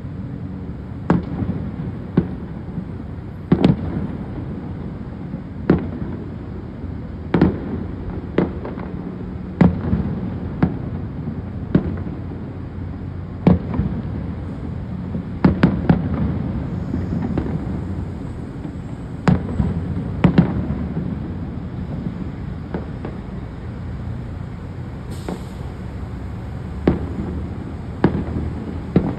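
Aerial fireworks shells bursting: a string of sharp bangs every second or two, some in quick pairs, over a steady low background rumble.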